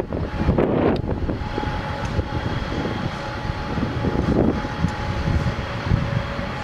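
Wind buffeting the microphone in uneven gusts, with a faint steady whine in the background from about a second and a half in.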